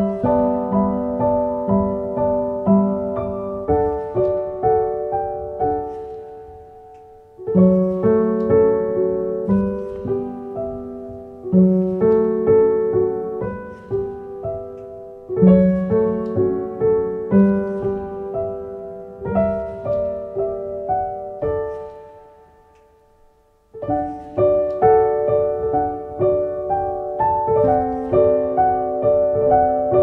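Background piano music, a slow melody of single ringing notes over soft chords. It fades away twice, about a quarter and about three-quarters of the way through, and a new phrase starts each time.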